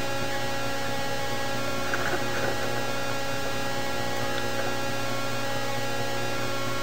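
Steady electrical hum with many overtones under a constant static hiss, from the nest camera's audio feed. A faint brief sound rises a little above it about two seconds in.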